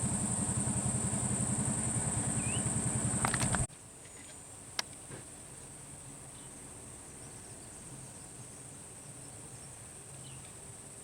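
A vehicle engine runs with a rapid low pulse for about three and a half seconds, then cuts off abruptly. A steady high-pitched insect drone continues throughout, with a single sharp click shortly after the engine stops.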